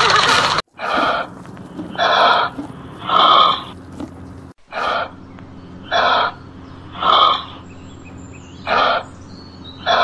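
Just over half a second of a horse whinnying over a herd's hoofbeats, then kangaroo calls. The calls are short harsh rasping cries, about one a second, with a brief break midway.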